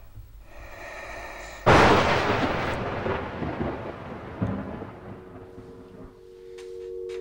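A sudden loud boom about a second and a half in, dying away in a long rumble over several seconds: a horror-film impact sound effect. Near the end a low steady tone swells in.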